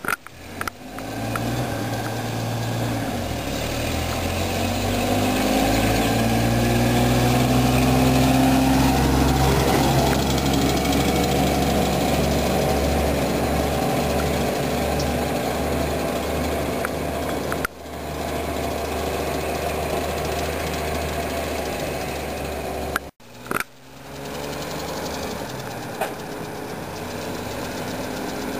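1946 Studebaker M5 pickup's flathead six-cylinder engine running as the truck drives. Its pitch rises a few seconds in as it accelerates. The sound drops out briefly twice later on.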